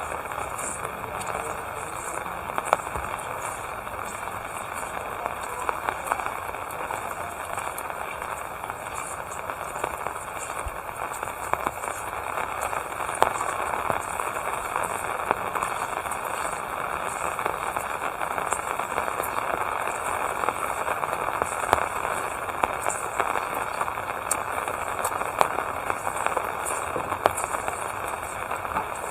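Steady rain falling, a continuous hiss with scattered sharper drop impacts.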